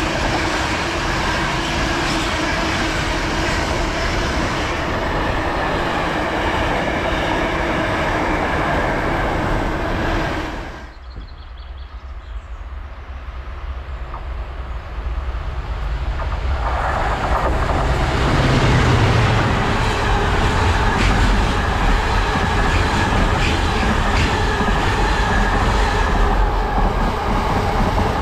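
Freight wagons rolling past at close range, a steady clatter of wheels on rail; the sound cuts off abruptly a little over a third of the way in. A second freight train of loaded container wagons then approaches, and it grows loud as it passes for the rest of the time.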